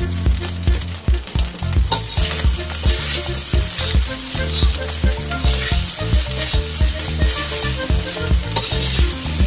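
Fried rice sizzling in a stainless steel wok while a metal slotted spoon stirs, scrapes and presses it against the pan, over background music.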